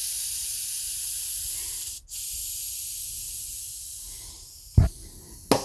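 Compressed air hissing out through the valve of a freshly inflated Continental Grand Prix 5000 S TR tubeless-ready tyre as it is deflated; the hiss stops briefly about two seconds in, then resumes and fades as the pressure drops. Near the end come two short thumps, as the tyre bead drops off its seat on the rim.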